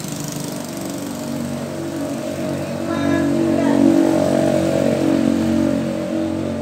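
A small engine running steadily, growing louder about three seconds in and easing off again.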